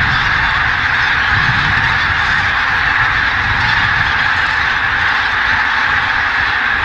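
A huge flock of greater white-fronted geese and bean geese in flight, calling all at once: a dense, steady din of countless overlapping honking calls, with a low rumble beneath.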